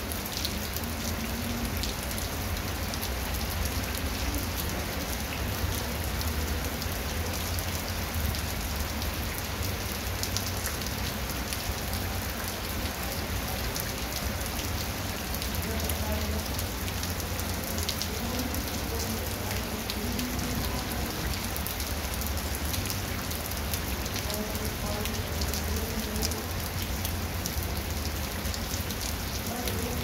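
Steady heavy rain falling on a wet concrete path and grass, an even hiss of many drops with a low steady rumble underneath.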